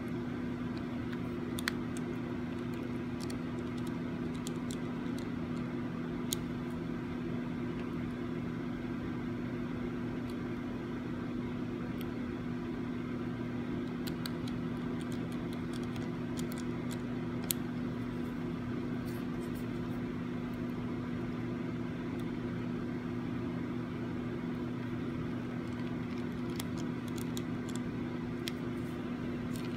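Steady low hum throughout, with scattered small clicks and ticks from a small Phillips screwdriver and the screws as the dash camera's back cover is screwed back on.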